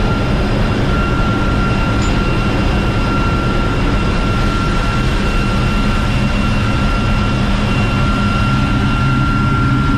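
Loud, steady drone of a ship's engine-room machinery running, a deep hum with a constant thin high whine over it.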